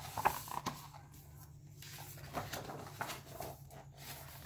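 Pages of a hardcover picture book being turned and handled: paper rustling and flapping, the sharpest rustle about a quarter-second in and several softer ones after.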